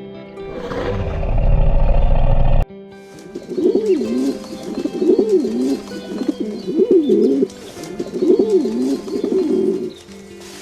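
A bird's low cooing calls, repeated in warbling phrases about every second and a half. Before them, a swelling noisy sound cuts off abruptly about two and a half seconds in.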